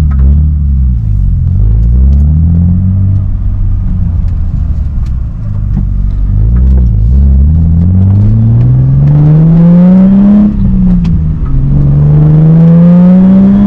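Nissan 350Z's V6 through a new aftermarket exhaust while the car is driven. The engine note rises and falls a few times, then climbs in two long pulls, with a gear change about ten and a half seconds in.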